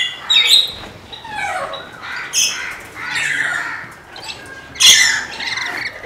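Parrots in aviary cages squawking: a string of separate calls, some sliding down in pitch, the loudest about five seconds in.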